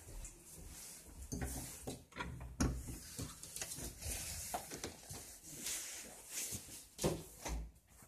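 Scattered knocks, clicks and rustling from a hand-held phone being handled and carried, with no steady sound beneath them.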